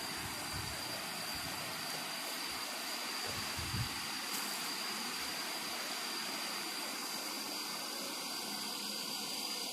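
Natural waterfall's water rushing steadily, with a thin, steady high-pitched whine over it and a few low bumps in the first few seconds.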